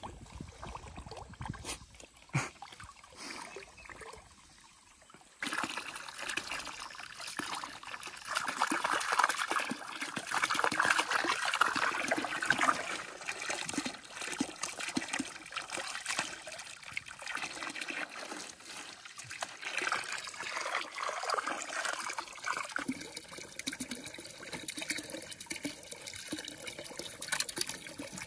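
Water from a garden hose splashing and trickling into a shallow plastic kiddie pool. It starts abruptly about five seconds in and runs steadily, loudest for a few seconds soon after.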